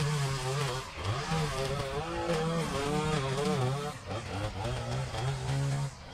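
Gas string trimmer engine running at high throttle, its pitch repeatedly dipping and recovering as the load of thick, tall grass on the line changes. The sound drops suddenly near the end.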